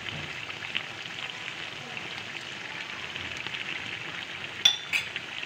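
Chicken pieces and fish sauce sizzling in a hot wok, a steady crackling hiss. Two sharp metal clinks near the end.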